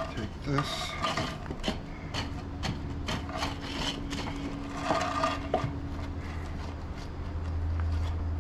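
Wooden boards being shifted and slid by hand, scraping and knocking lightly against each other in a string of small clicks and taps. A steady low hum runs underneath and grows louder near the end.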